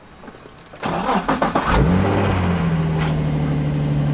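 Nissan 350Z's VQ35DE V6, fitted with a Greddy aftermarket exhaust, cold-started. The starter cranks for about a second, then the engine catches near the middle with a brief flare in revs and settles into a steady idle.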